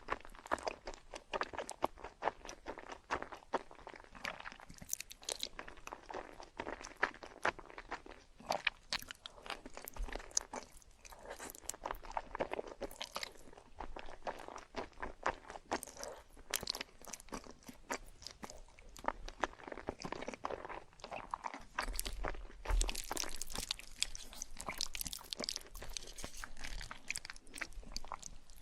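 Close-up sound of a person eating: repeated crisp crunching and chewing of food, bite after bite, growing denser in the last few seconds.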